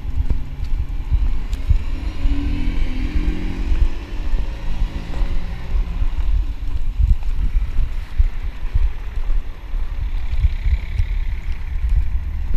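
Road traffic passing close by: a vehicle engine running in the first few seconds, and tyre noise of passing cars that rises twice. Under it is a heavy low rumble of wind on the microphone.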